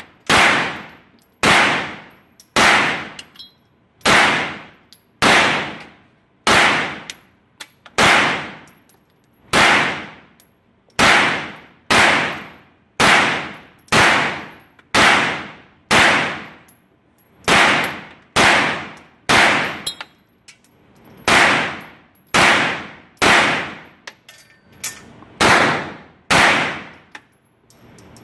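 CZ Scorpion carbine fired semi-automatically, one shot after another at a steady pace of about one a second, each sharp report ringing out in the echo of an indoor shooting range.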